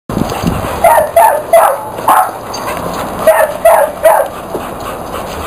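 Pit bull barking: about seven short, loud barks in two quick runs, four and then three.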